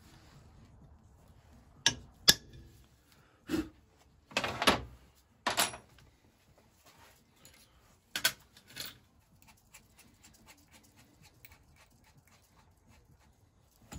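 Sharp metal knocks and clanks of hand tools (a ball-pein hammer and a punch) worked against a rusty cast-iron vaporiser, the two loudest about two seconds in and a few more over the next seven seconds. Near the end comes a scattering of faint light clicks and rattles.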